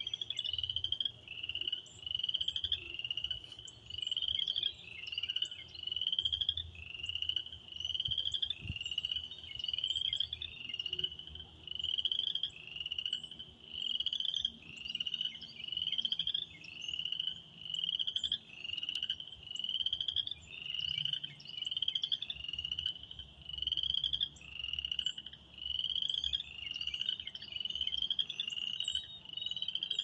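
Chorus of spring peepers: many small frogs each giving a short, high, rising peep, repeated several times a second and overlapping without pause.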